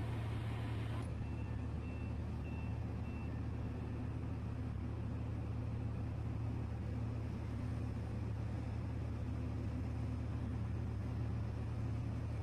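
Steady low drone of a ship's diesel engines running, an even hum with no change in pace. Four faint short high beeps sound between about one and three seconds in.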